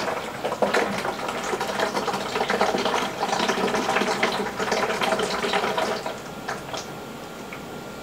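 Water running out of a drain valve on the house's shut-off supply line into a plastic five-gallon bucket, splashing as the bucket fills: the line is being drained. The flow drops off about six seconds in.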